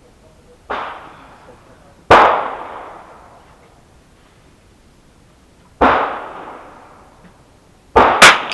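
Five sharp gunshot reports, each trailing off in an echo. A softer one comes about a second in, the loudest about two seconds in, another near six seconds, and two in quick succession near the end.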